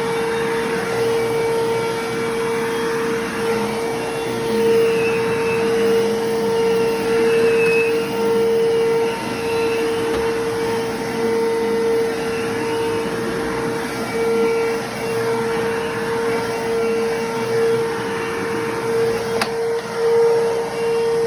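Bissell Lift-Off bagless vacuum cleaner running with a steady high motor whine over its suction noise, the level wavering slightly. There is one sharp click near the end.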